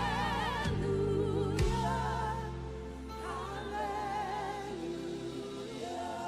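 Live gospel worship music. A high melody is held in long notes with wide vibrato over sustained keyboard chords and bass. There are two drum hits in the first two seconds.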